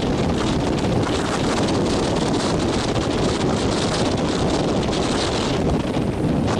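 Strong wind buffeting the microphone over the steady rush of rough, breaking surf.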